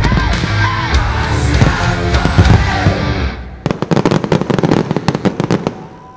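Fireworks display with its music soundtrack playing loud over deep firework bursts; about three and a half seconds in the music stops and a rapid, irregular barrage of sharp firework reports carries on, thinning out and fading near the end.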